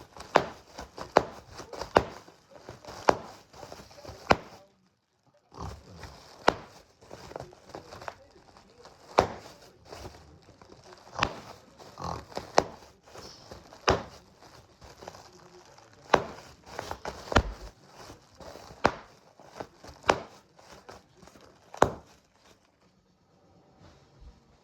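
Repeated sharp pops coming at an irregular pace, about one or two a second, with a short break about five seconds in.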